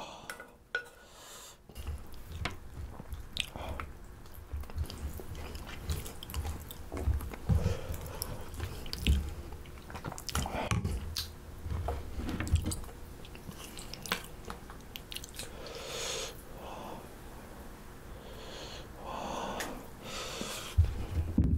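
Wooden chopsticks stirring rice into a bowl of mulhoe, Korean cold raw-fish soup in an iced broth, with irregular clicks and knocks against the ceramic bowl.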